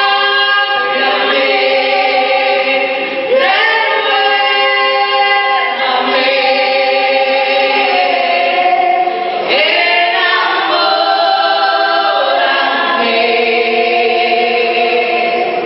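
A small mixed vocal group of women and one man singing a Christian hymn together into microphones, in long held phrases with short breaks between them.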